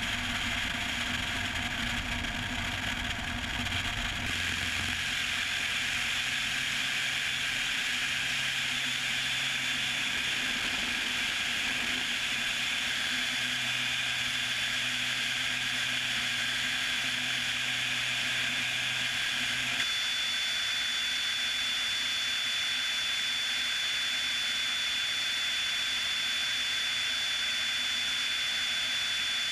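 Piper Cherokee light aircraft's piston engine and propeller running at takeoff power through the takeoff and climb-out: a steady drone with a hiss over it. A thin high tone joins about two-thirds of the way in.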